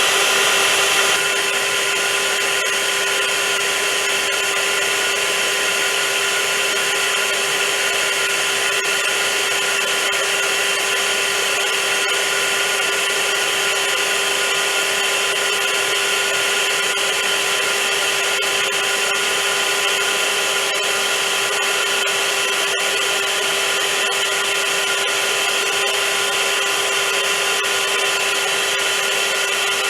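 Vacuum cleaner running steadily: a constant rushing hiss with a steady hum through it. It dips slightly in level about a second in, then holds even.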